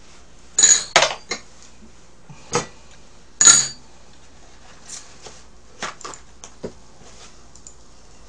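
Tableware clattering: a handful of sharp clinks and knocks of metal utensils and dishes on the table, the loudest in the first four seconds and lighter ones after.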